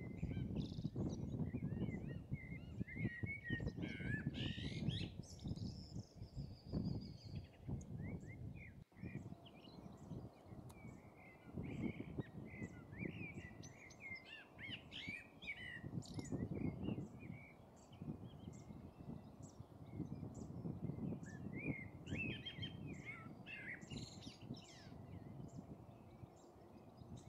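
Small songbirds chirping and trilling in quick, overlapping calls over a low, uneven rumbling background noise. The noise drops off sharply about nine seconds in.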